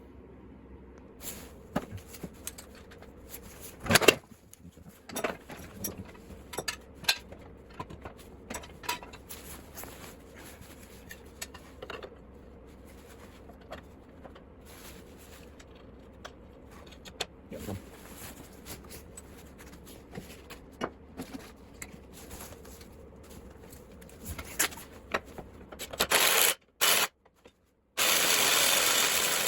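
Clinks, scrapes and rubbing of hand tools on metal mower parts as a Lawn Boy mower's blade is fitted, with a sharp knock about four seconds in. Near the end come two loud bursts of steady noise.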